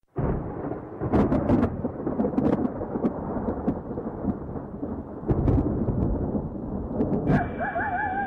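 Thunder-like rumbling noise with sharp crackles, swelling and easing. About seven seconds in, a wavering siren-like tone begins and settles into a slowly falling note.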